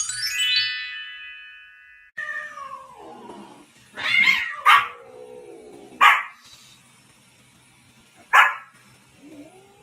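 A brief falling tone, then a dog barking four times at uneven intervals, with whining between the barks.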